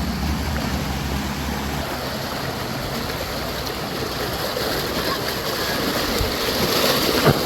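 Mountain stream water rushing steadily over rocks. A low mechanical hum fades out about two seconds in, and a sharp knock comes near the end.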